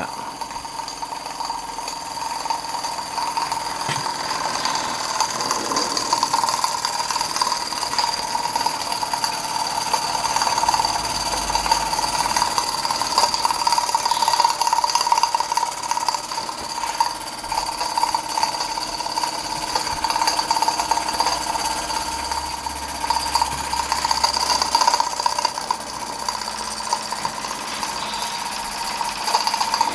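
Small gas-fired model stationary steam engine running steadily at low boiler pressure, a fast, even mechanical beat with a steady high tone under it. The engine is running smoothly and quietly, its flywheel true.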